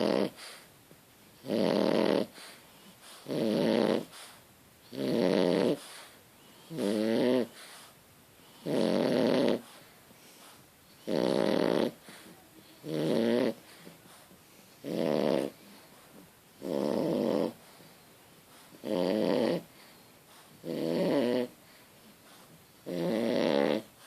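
Steady snoring: a rattling snore about every two seconds, each under a second long, with quiet breaths between.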